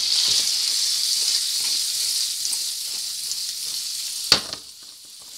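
Button mushrooms sizzling in a frying pan in butter, water and lemon juice, a steady high hiss that slowly fades. A single sharp knock about four seconds in, after which the sizzle is quieter.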